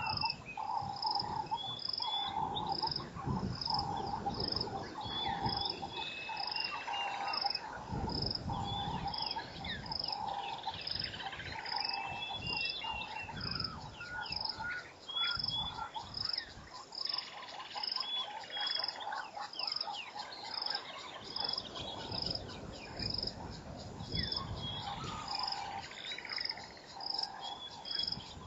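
African bush ambience: an animal call repeating evenly about one and a half times a second, with birds chirping and whistling over it. Low rumbles come and go.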